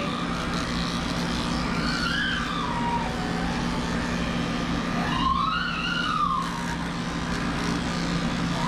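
Electric dog grooming clippers with a number 7 blade run with a steady hum while shaving a small dog's thick coat. Three drawn-out, higher whines rise and fall in pitch over the hum.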